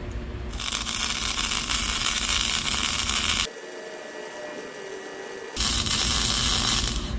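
Electric arc welding: a steady, loud crackling hiss that stops after about three seconds and resumes for a second stretch near the end, as a steel part is welded onto the stove body.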